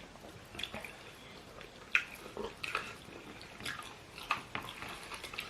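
Close-up eating sounds: scattered wet mouth clicks and lip smacks of chewing curry rice and fish, with a sharper smack about two seconds in.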